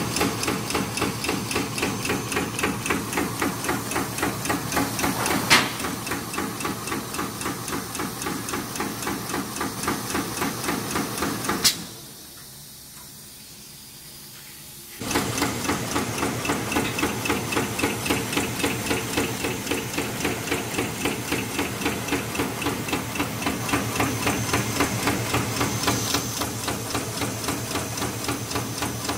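Radial wire spot welding machine for electric fan guards running at high speed: a fast, even clatter of repeated welding strokes with a hiss. A sharp click twice, and about twelve seconds in the rhythm stops for about three seconds before starting again.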